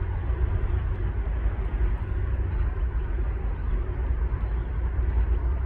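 Steady city background noise: a deep, even rumble of traffic with a faint steady hum over it.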